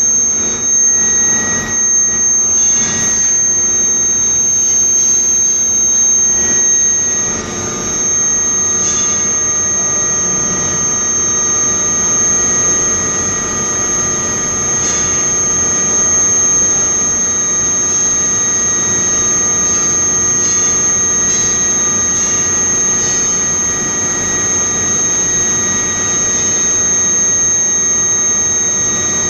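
Induction heating equipment running: a steady high-pitched whine over a steady mechanical noise, with a few faint knocks in the first several seconds.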